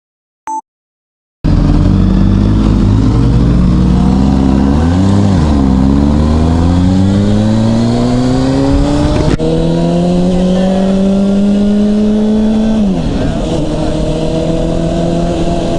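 Motorcycle engine pulling away and accelerating through the gears, with wind rushing over the microphone. The revs climb, dip at a shift about five seconds in and again near nine seconds, hold steady at cruise, then fall back near the end.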